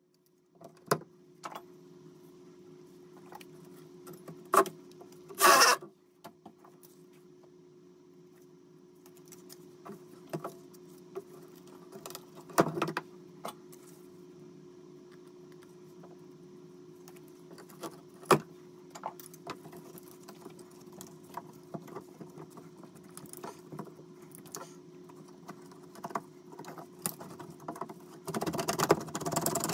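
Scattered clinks and knocks of metal hand tools being handled, the loudest about five seconds in, over a steady low hum. Near the end comes a denser metallic rattle as tongue-and-groove pliers are worked on the pipe inside the tiled wall opening.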